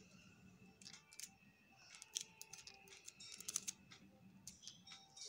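Faint crinkling and soft clicks of clear sticky tape and paper handled in the fingers, with a few scattered ticks and a small cluster of them a little past halfway.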